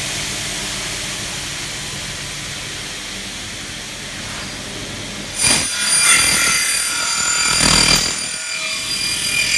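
Taiwanese DB455 45-degree aluminium cutting saw running with a steady hiss; about five seconds in, its blade cuts into an aluminium profile, giving a louder high-pitched ringing whine through the cut.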